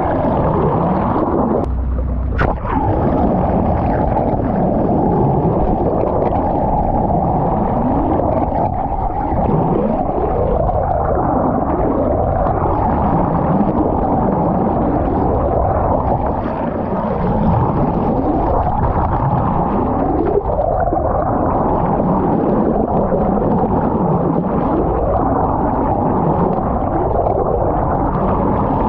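Underwater chorus of cetacean calls: many overlapping whistle-like calls, each sweeping down in pitch and back up, following one another every second or two. About two seconds in they break off briefly with a click, then carry on.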